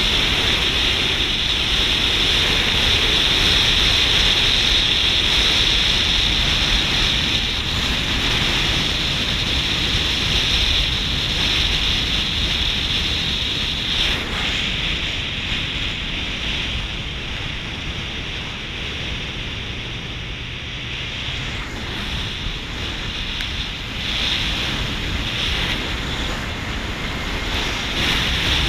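Steady rushing wind and road noise from a vehicle driving on a paved road, with wind buffeting the microphone. The noise eases somewhat past the middle and picks up again near the end.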